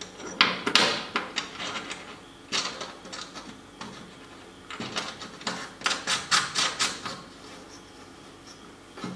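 Hand work on a bare aluminum firewall sheet: a small hand tool scratching and clicking against the metal around a small aluminum clamp block, in three spells of rapid ticks.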